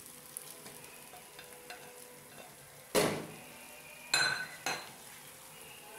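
Spatula stirring fried chicken pieces through sauce in a frying pan, over a faint steady sizzle. About three seconds in the spatula knocks loudly against the pan, and about a second later it strikes twice more with a short ringing clink.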